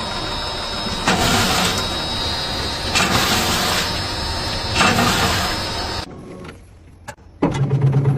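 Machinery running steadily, with a louder surge about every two seconds, then cutting out. Shortly before the end a different machine starts with a low hum and a rapid pulsing rhythm.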